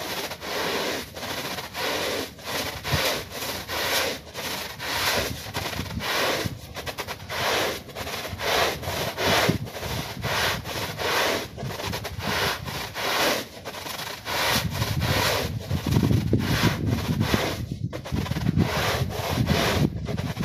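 Stiff-bristled push broom scrubbing a wet, soapy rug: a rasping, swishing stroke through the lather about twice a second, growing louder and fuller in the last few seconds.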